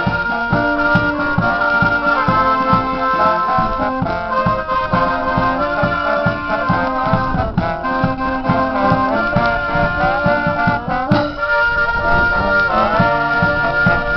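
A Dutch dweilorkest (street brass band) playing: several trumpets carry the tune together over a steady bass-drum beat.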